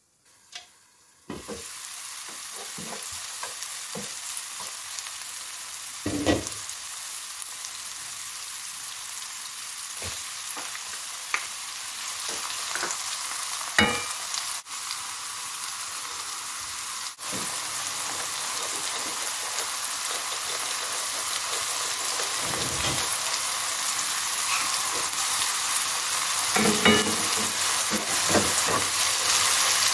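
Diced onion, green pepper and tomato sizzling in oil in a frying pan, with short knocks and scrapes from a wooden spatula stirring them. The sizzle comes in about a second in and grows slowly louder toward the end.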